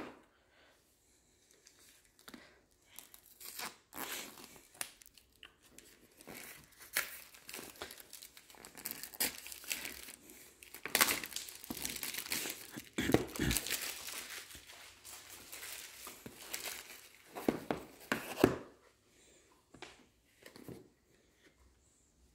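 Plastic shrink-wrap being torn and crinkled off a cardboard product box, in irregular bouts of crackling that die down about 18 seconds in.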